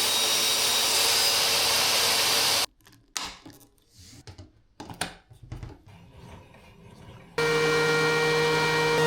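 Woodworking power tools: an electric tool cutting or sanding wood with a loud, even hiss for nearly three seconds, then stopping. A few light knocks and handling sounds follow, then about two-thirds of the way through an electric motor starts and runs at a steady pitch with a whine.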